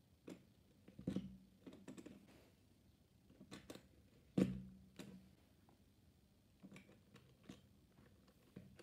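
Plastic Lego Technic beams and pins clicking and knocking as they are handled and fitted together by hand. Irregular faint clicks, with a louder knock about four and a half seconds in.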